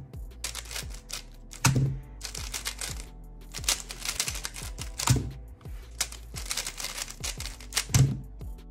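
Rapid clicking of a 3x3 speedcube's layers being turned at speed, over background music. A few loud thumps of hands slapping down on a Speedstacks timer pad come about two, five and eight seconds in.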